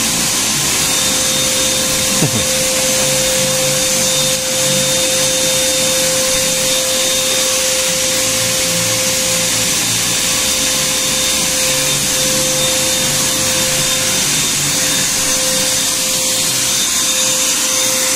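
Small one-gallon shop vacuum running steadily for the CNC router's dust collection: an even rushing noise with a steady whine. Right at the end the whine starts to fall as the vacuum winds down.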